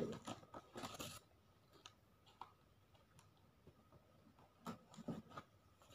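Faint rustling and crinkling of printed tissue wrapping paper being unfolded inside a shoe box, in short scattered bursts, a little louder in the first second and again near the end.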